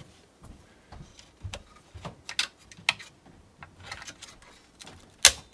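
Memory DIMMs being pressed into a server motherboard's RAM slots: a string of small, irregular plastic clicks and taps as the modules seat and the slot latches snap shut, the loudest click about five seconds in.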